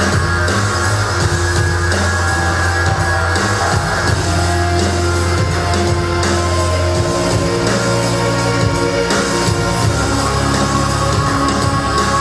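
Rock music with guitar and drum kit playing loudly; the sustained bass note changes about seven seconds in.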